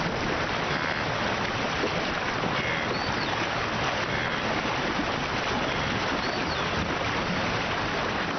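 Steady, dense rush of churning river water and splashing as a herd of wildebeest thrash through the water at the foot of the bank.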